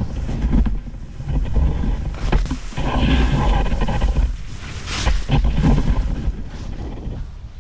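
Wind buffeting a GoPro Max 360 camera's microphone at skiing speed, with the hiss and scrape of skis turning through snow.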